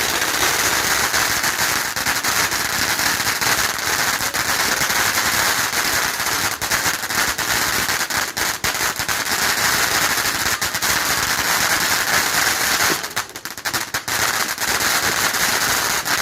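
Fireworks crackling in a dense, rapid, unbroken string of sharp pops that thins briefly about thirteen seconds in.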